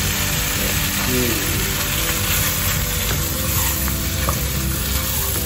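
Frozen roti canai sizzling steadily in hot oil in a nonstick frying pan. About four seconds in there is a light click as tongs lift and turn the flatbread against the pan.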